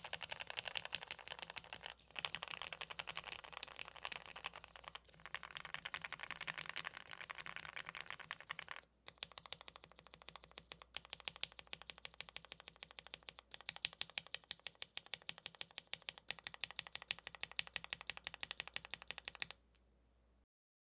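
Typing on a tape-modded MODE Eighty custom mechanical keyboard with Gateron Black Ink V2 linear switches on a POM plate. The keystrokes are rapid and dense at first. About nine seconds in they turn sparser, with some sharper, louder strokes, and they stop about a second before the end.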